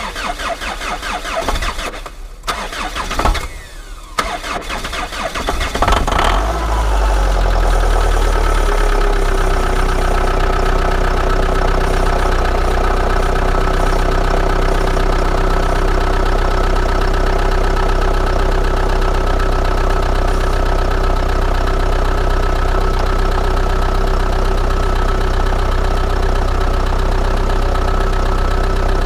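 Chrysler Voyager's diesel engine being cranked hard in deep cold for about six seconds, with two short breaks. It then catches, runs fast for a moment and settles into a steady idle. This is a hard cold start at −17 °C, with glow plugs the owner suspects are not working.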